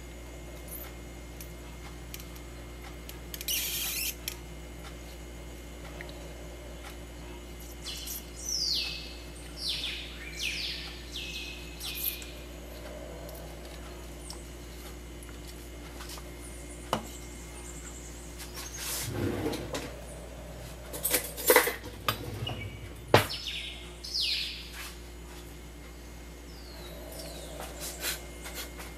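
Kitchen worktop sounds over a steady low hum: scattered clinks and knocks of a bowl and utensils on a tiled counter, busiest and loudest about two-thirds of the way through. Several short falling chirps come in small runs.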